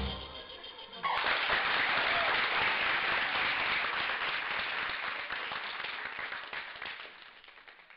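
Audience applauding, breaking out suddenly about a second in and fading away toward the end.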